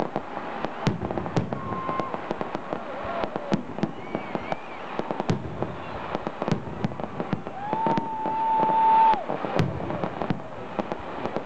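Aerial fireworks display: a dense run of sharp crackling pops and bangs from bursting shells. About eight seconds in comes a long held high tone, the loudest moment.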